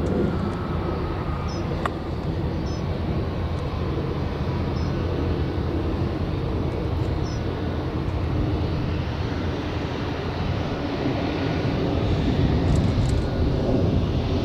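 Jet engines of an Airbus A320 airliner running at low power as it taxis along the runway: a steady low rumble that grows a little louder near the end. A few faint short high chirps sound over it in the first half.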